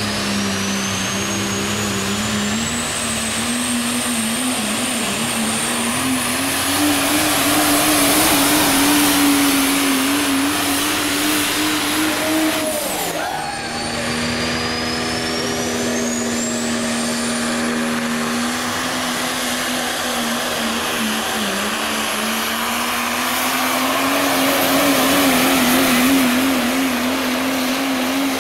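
Super stock diesel pickup trucks pulling a sled under full load: the engine is held at high revs with a wavering note while the turbocharger whistle climbs slowly to a high pitch. About halfway through, the engine note sweeps down as one pull ends, then a second truck's pull begins with its turbo whistle rising again.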